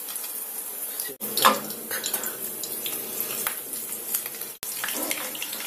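Hot oil sizzling and crackling in a frying pan as batter-dipped chicken fillet chops are laid into it, with a louder flare of sizzling about a second and a half in.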